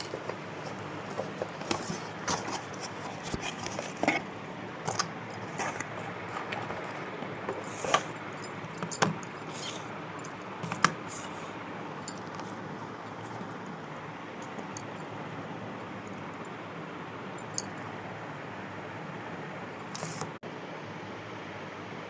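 Parcel packaging being handled and opened: plastic crinkling and rustling with sharp crackles and clicks, busy for the first half and only occasional after, over a steady hiss.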